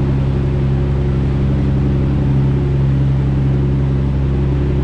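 Car ferry's diesel engines running under way, a steady low drone with a constant hum.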